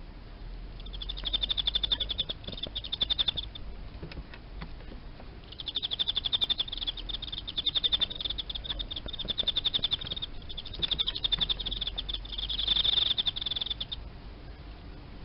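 Teleogryllus field cricket (Emma field cricket) singing: a run of rapid, evenly pulsed, high-pitched chirps, a pause of about two seconds, then a longer run of chirping.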